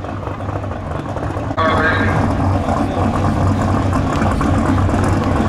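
Drag-racing hot rod's engine idling lumpily after a burnout, getting abruptly louder about a second and a half in.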